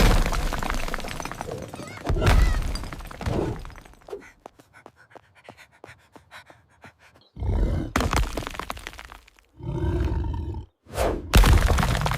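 Sound-effect crashes and impacts in loud, uneven surges, with a pitched roar about ten seconds in.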